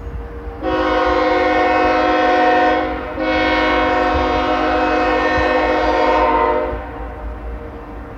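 BNSF diesel locomotive's multi-chime air horn sounding two long blasts, the second one longer, with a short gap between them.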